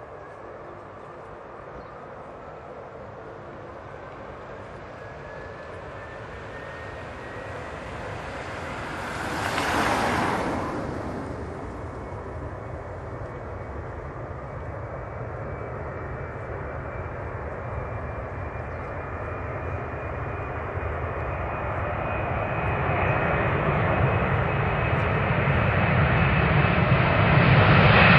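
Twin-engine jet airliner's turbofans spooling up for take-off: a whine that climbs slowly in pitch over a low rumble, growing steadily louder toward the end as the take-off roll begins. About ten seconds in, a brief rushing swell rises and fades.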